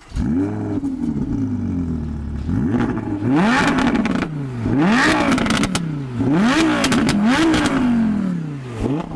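Audi R8 V10 Plus's 5.2-litre FSI V10 through its Audi Sport exhaust: it fires up with a flare of revs, settles to a lumpy idle, then is blipped repeatedly, the pitch climbing and dropping back with each rev.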